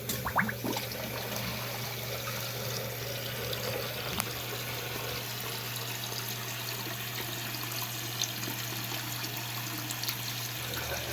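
Toilet tank refilling through a newly fitted plastic fill valve after the water supply is turned back on: a steady hiss of running water, with a few short clicks in the first second.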